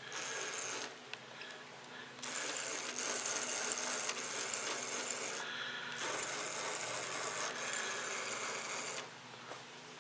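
24 V 250 W electric motor driving the mower's wheel through a small chain, running with the rattle of the chain drive: a short burst at the start, then a steady run of about seven seconds at the 40% throttle setting of its speed controller.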